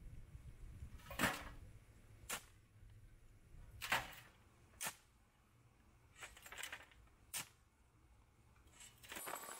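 A shovel being driven into a pile of crushed rock and the gravel being tossed into a wheelbarrow: about seven sharp scraping crunches, roughly one every second.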